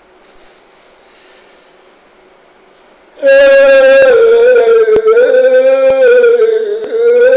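About three seconds in, a man's voice breaks in very loud, chanting long held notes that waver slightly in pitch with only brief breaks.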